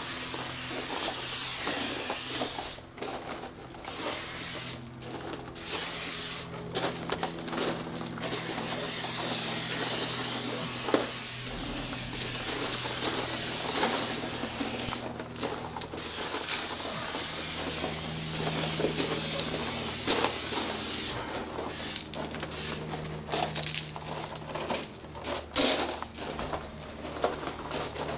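Aerosol spray paint can hissing in long bursts of several seconds each, with short breaks between them.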